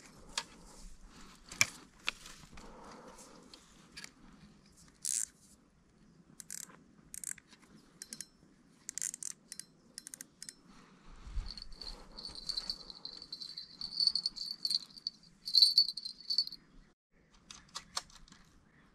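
Fishing tackle being handled: scattered sharp clicks and rattles, with a low thump about eleven seconds in. Midway a high, pulsing ringing trill runs for about four seconds.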